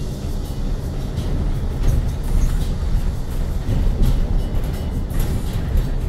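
Cabin noise of a 2019 Hyundai Elec City electric bus under way: a steady low road and tyre rumble, with scattered rattles and knocks from the bus body and fittings.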